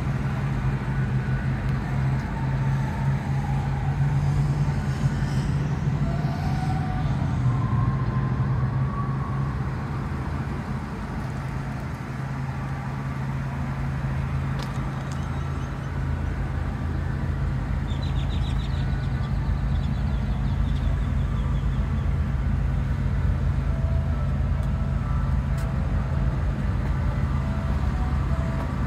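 2006 Lincoln Mark LT's V8 engine idling, a steady low hum.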